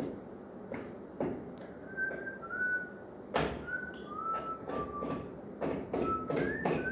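A string of short whistled notes at changing pitch, starting about two seconds in, mixed with sharp clicks and knocks from hands working a recessed ceiling light fixture.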